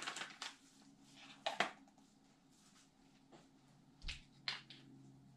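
Faint clicks and rustles of small drone accessories and their packaging being handled. There are two sharp clicks about a second and a half in, and a light knock about four seconds in as an item is set down on a wooden table.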